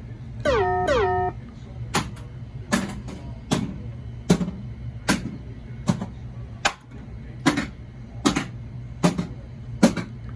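Pinball machine coils firing in turn in solenoid test, one sharp click-thump about every 0.8 seconds, as the newly repaired driver board drives them. Near the start, two short descending electronic tones come from the machine's sound system.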